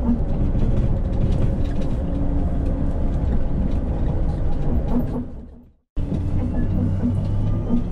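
Mack LR Electric battery-powered refuse truck driving, with no engine running: a steady rumble of road and tyre noise with small cab rattles and squeaks. About five and a half seconds in the sound fades out to silence for a moment, then the steady rumble comes back.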